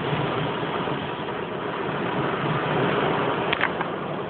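Heavy rain falling steadily during a thunderstorm, an even hiss, with a brief sharp click about three and a half seconds in.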